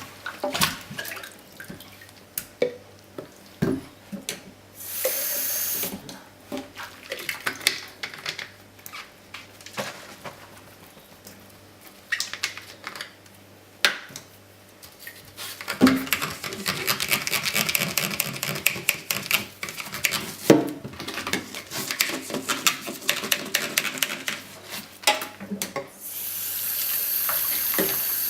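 Baby's feeding bottle being washed at a sink: scattered knocks and clinks of the bottle and its parts, a short run of the tap about five seconds in, a busy stretch of rattling and splashing in the middle, and the tap turned on to a steady flow near the end.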